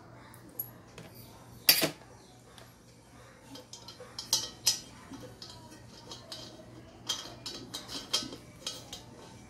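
Scattered clinks and knocks of the metal fittings of an LPG torch kit being handled and screwed together, the sharpest about two seconds in.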